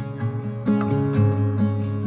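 Background music: plucked acoustic guitar with notes struck at a steady pace.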